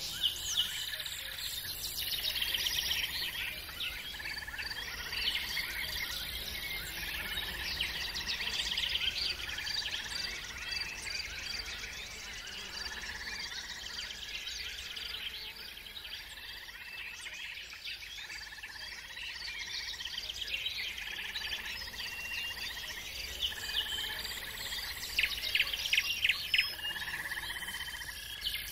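Many songbirds chirping and trilling continuously, over a steady high insect chirring, with a cluster of louder, sharper chirps near the end.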